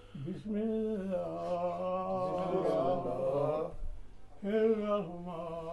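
A man's voice chanting in long, held, slightly wavering notes: one drawn-out phrase, a short break about four seconds in, then a second phrase.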